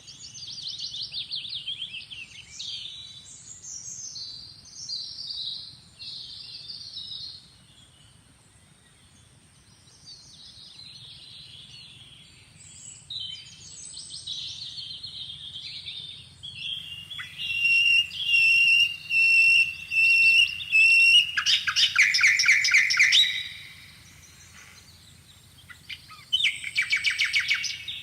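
Birds chirping and calling, with a held high whistle about two-thirds in, then fast, loud trills, twice, near the end. A faint steady high whine runs underneath.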